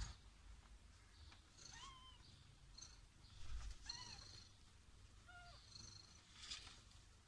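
Newborn kittens giving about three short, high-pitched mews while nursing, over a faint low purr.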